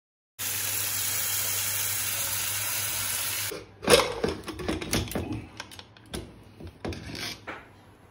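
Tap water running steadily into an aluminium pressure cooker full of potatoes. The water stops after about three seconds and is followed by a string of metal clanks and knocks as the cooker is handled and its lid is fitted.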